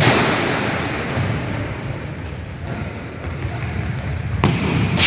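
Futsal ball struck twice on a wooden sports-hall court, one sharp hit at the start and another about four and a half seconds in, over the steady echoing din of the match in the hall.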